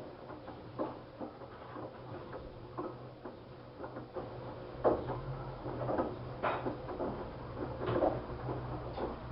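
LG washing machine running its wash cycle with a double blanket in the drum: a steady low motor hum under irregular knocks and clunks from the turning load. The loudest knocks come about five and eight seconds in, and the hum grows stronger around five seconds.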